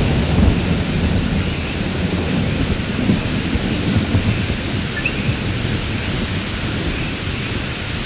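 Steady heavy rain pouring onto rainforest foliage, with a low rumble underneath.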